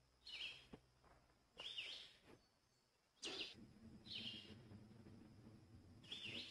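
Faint high chirps from a small songbird: five short calls spaced one to two seconds apart. A low steady hum joins about halfway.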